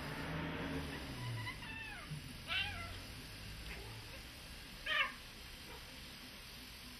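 Cats scuffling give several short meowing cries. The two loudest come about two and a half and five seconds in.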